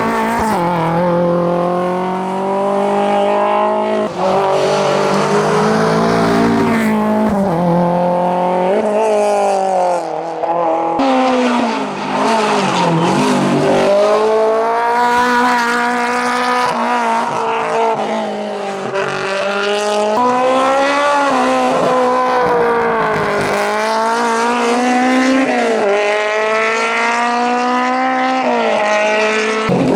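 Hillclimb race car's engine near full throttle, its pitch climbing and then dropping sharply at each gear change. About twelve seconds in the revs fall away and build again, as when the car slows for a corner.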